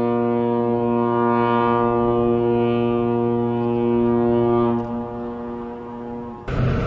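A ship's horn sounding one long, deep blast that weakens about five seconds in and then stops. Near the end a rush of wind and water noise cuts in suddenly.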